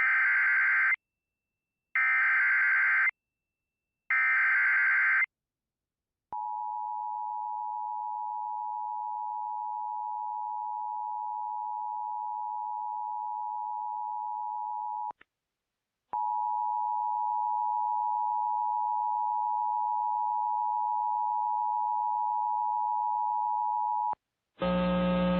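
Emergency Alert System SAME header opening a tornado warning: three one-second bursts of screeching digital data tones, then the steady two-tone EAS attention signal, which breaks off briefly about 15 seconds in and resumes for about eight seconds more. Just before the end, the spoken warning message begins.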